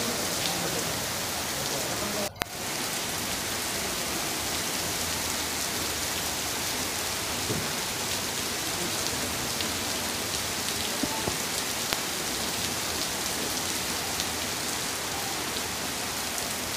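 Heavy rain falling steadily onto wet pavement, an even rushing hiss that cuts out for an instant about two seconds in.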